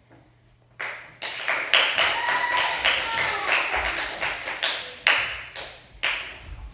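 A small audience applauding, starting suddenly about a second in and thinning out near the end.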